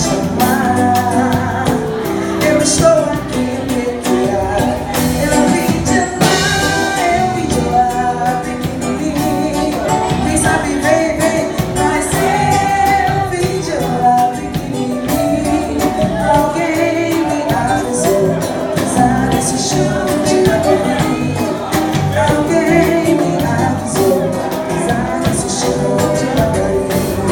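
A song: a singer's voice over instrumental accompaniment, playing steadily throughout.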